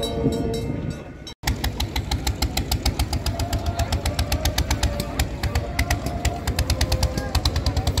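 Men's yodel choir holding a sung chord, cut off about a second and a half in. Then an engine runs with a loud, even knocking beat, several beats a second.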